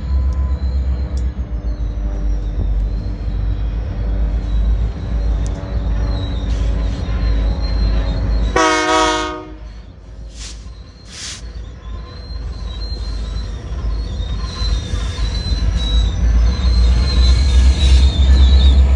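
A loud, steady low rumble with a faint high whine over it, and a single horn blast of about a second just before the middle, followed by two short hisses.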